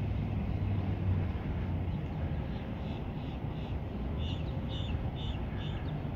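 Steady low rumble, with a faint high chirp repeating evenly about twice a second in the second half.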